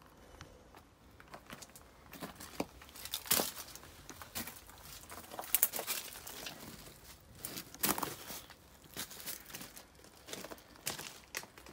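Footsteps on loose gravel railway ballast, an uneven series of steps.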